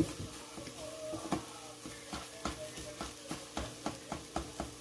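Spatula stirring scrambled eggs in a frying pan, clicking against the pan about three to four times a second, over a steady low hum.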